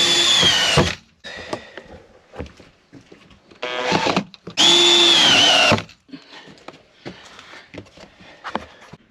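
Power drill running in two bursts of about a second each, driving screws into wooden battens, its whine dipping in pitch at the end of each burst. Light knocks and handling noises come in between.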